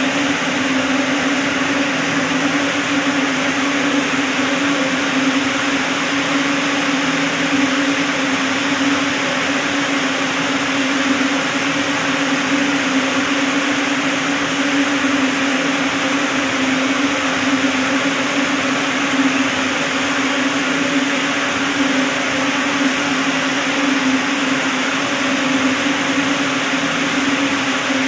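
Steady hum and hiss of ring spinning frames running in a mill, an even machine drone with a strong low hum that does not change.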